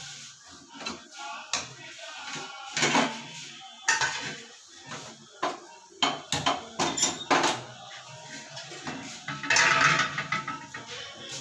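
Stainless steel plates, lids and kitchen utensils clinking and clattering as they are picked up and set down on a counter, in irregular sharp clanks, with a longer rattle about ten seconds in.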